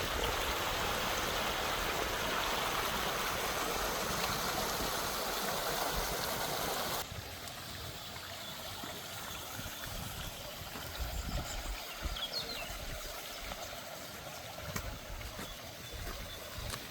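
Steady rushing of running water, like a stream or fountain, which cuts off abruptly about seven seconds in. A quieter outdoor background follows, with a few faint short chirps.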